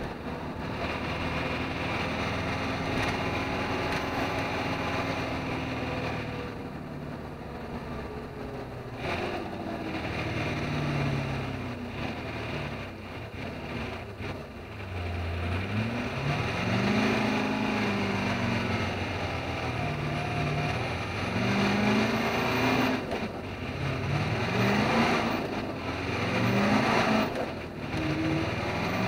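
Truck's diesel engine running under load, heard from inside the cab along with road noise. From about halfway through, its pitch climbs and falls back again and again.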